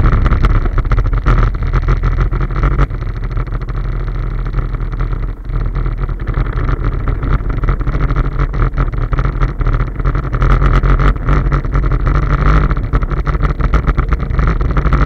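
Loncin X-Wolf 700 ATV's single-cylinder engine running as the quad rolls downhill, with steady wind and road noise over the microphone; the engine note drops in level about three seconds in.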